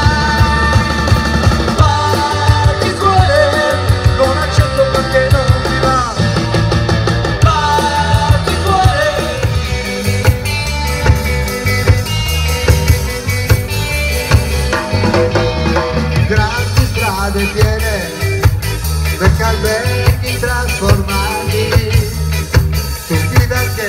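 Live ska-flavoured rock band playing loudly: a man singing lead over drum kit, bass and electric guitar. Partway through, one song gives way to another.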